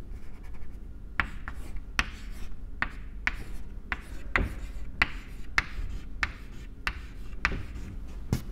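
Chalk writing on a chalkboard: a string of short taps and scrapes, about one or two a second, as letters are written.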